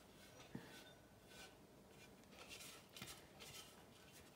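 Faint, soft scraping: a spatula scraping grated bread crumbs out of a stainless steel Thermomix mixing bowl onto a plate, in several short swishes.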